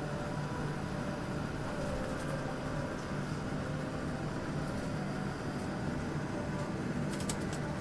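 Steady cabin noise inside an airliner taxiing after landing: idling jet engines with a low, even hum. A few faint clicks come near the end.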